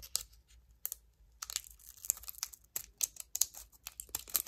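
Scissors cutting across the top of a foil Yu-Gi-Oh booster pack, the foil wrapper crinkling in a run of sharp crackles and clicks.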